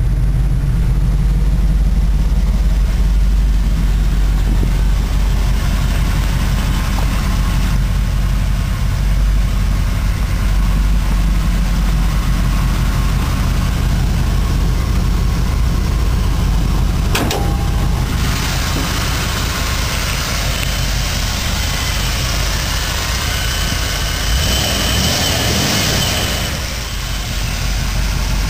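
1974 Ford F-100's 390 V8 idling steadily shortly after a cold start in below-freezing weather. A single sharp knock comes about two-thirds of the way through.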